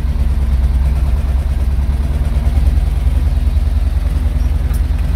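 The two-cylinder air-cooled diesel of an old Władimirec tractor running steadily, heard from inside its cab as the tractor drives.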